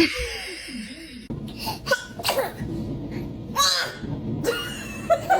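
A baby sneezing: a sudden loud burst right at the start, then smaller breathy sounds and clicks, and another short burst about two-thirds of the way through.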